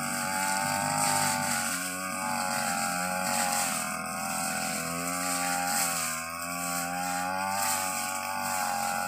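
Stihl backpack brush cutter engine running under load, its pitch rising and falling every couple of seconds as the blade cuts through dense fern growth.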